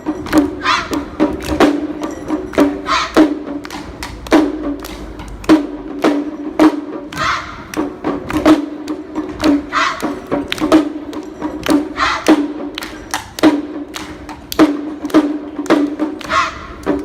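Lion-dance performance music: rapid, sharp wooden clacks and drum hits over a steady low tone, with short hissy metallic bursts every second or so.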